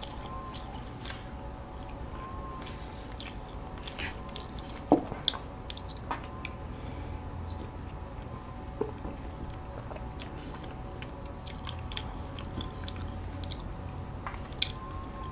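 Close-miked chewing of soft walnut cakes filled with sweet red bean paste, wet and soft, with scattered small mouth clicks and smacks.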